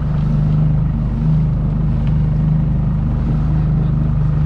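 A boat's motor running at a steady speed, a constant low drone with no change in pitch.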